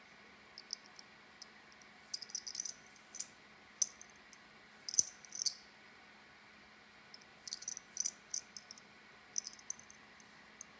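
Light, sharp clicks and clinks of small silver pieces being handled, coming in irregular clusters, with a faint steady hum underneath.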